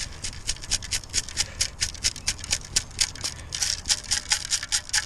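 Sand and shell grit rattling in a perforated metal beach sand scoop (Xtreme Scoop) as it is shaken rapidly, several shakes a second, to sift out a detected coin.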